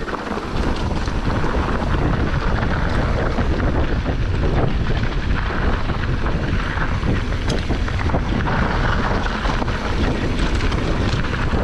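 Wind buffeting the microphone of a camera riding a mountain bike at speed, over the noise of tyres on a loose dirt trail and scattered rattles and knocks from the bike. It gets louder in the first second as the rider picks up speed, then stays steady.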